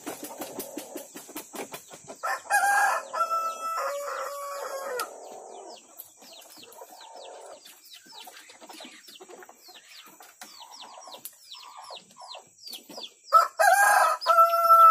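A rooster crowing twice: one full crow about two seconds in, held and falling in pitch at the end, and a second crow starting near the end.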